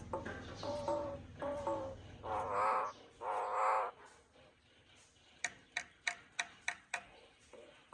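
Common myna calling: a few short warbling notes, then two loud harsh squawks, followed by a quick run of about six sharp clicks. A low hum fades out about two and a half seconds in.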